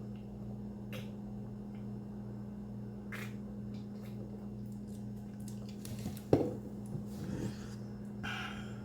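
Close-up eating sounds: wet mouth clicks and chewing of a chicken quesadilla, over a steady low hum. A single sharp thump about six seconds in is the loudest sound.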